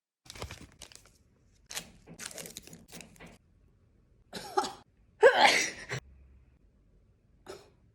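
A person coughing in short bursts, the loudest a little past five seconds in: a reaction to a nasal swab pushed up the nose.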